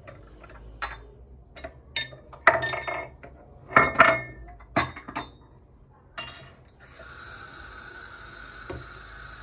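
Dishes and glassware clinking and knocking against each other about a dozen times, with a short ring after the louder strikes. About seven seconds in, a kitchen tap starts running with a steady hiss.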